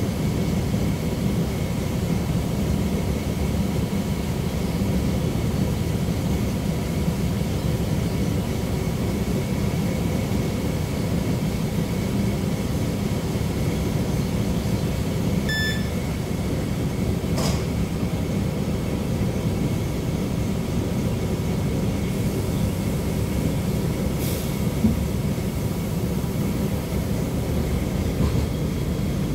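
Steady low rumble of an ALn 668 diesel railcar heard from inside the cabin as it creeps along slowly. A short electronic beep sounds about halfway through.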